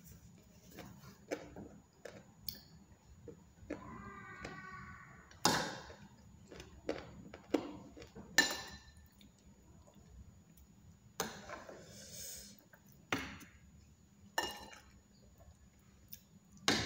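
Metal spoon and fork clinking and scraping against a plate, with sharp clinks every second or two, some ringing briefly, and chewing in between.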